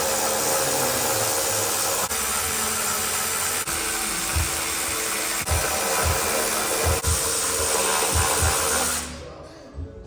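A shop tool running with a steady, loud rushing whir that cuts off abruptly near the end.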